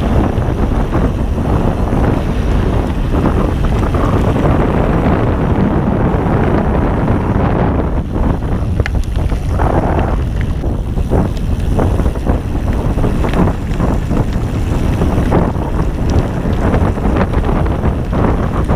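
Wind rushing over the microphone as a Ghost Riot mountain bike rides fast down a dirt forest trail, with tyre rumble and short rattling knocks from the bike over bumps, more of them in the second half.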